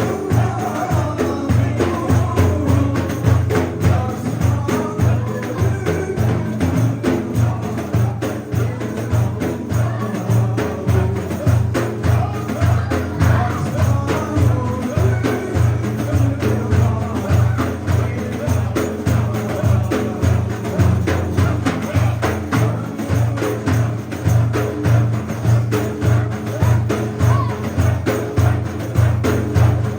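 Turkish Sufi hymn (ilahi) music: a frame drum with jingles beats a steady rhythm under a melody.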